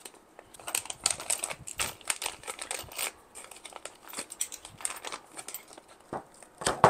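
Crinkling of a small clear plastic parts bag being handled to take out copper butt splice connectors, with small irregular clicks throughout. A louder, sharper sound comes near the end.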